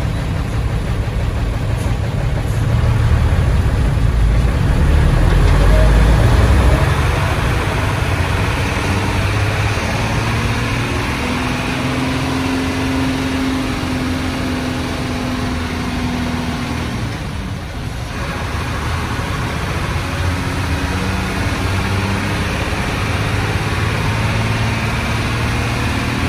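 Old Hino diesel bus engine and its rumbling exhaust heard from inside the cabin while driving. It swells louder between about three and seven seconds in and drops briefly about two-thirds of the way through.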